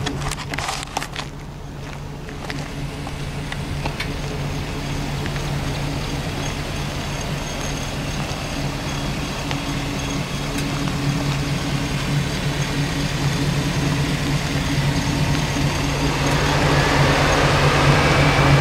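V8 engine of a Jeep Wrangler TJ idling steadily, getting louder near the end. A few knocks sound in the first couple of seconds.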